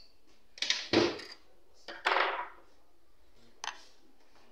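Open metal computer tower case being handled and turned on a table: a heavy thunk about a second in, a second scraping knock shortly after, and a light click near the end.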